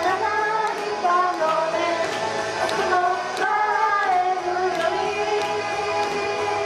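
A group of young women singing a pop idol song live into handheld microphones over backing music with a steady beat, all through the PA.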